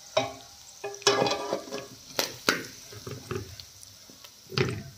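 A steel spatula scraping and scooping cooked mutton liver out of a steel pot, giving a series of irregular metal scrapes and clinks. The sharpest pair comes a little after two seconds in.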